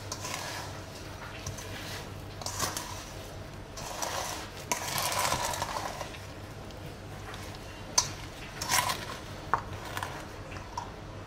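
Kitchen utensils and dishes being handled while making strawberry preserve: scattered clinks and sharp taps of metal and glass, with a second or so of scratchy noise near the middle and a brief ringing clink later on.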